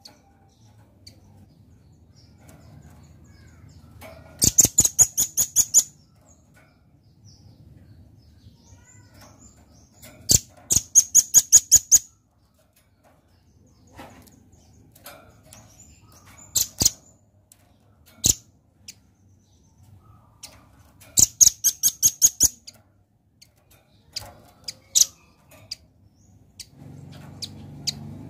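Velvet-fronted nuthatch calling: bursts of rapid, sharp, high-pitched notes, about six a second, repeated about five times with a few single notes between.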